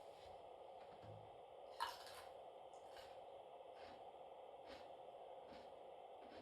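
Cucumber being crunched in a slow, even rhythm to imitate footsteps in snow: faint crunches about every 0.8 s, with a sharper, louder one about two seconds in, over a steady low hum.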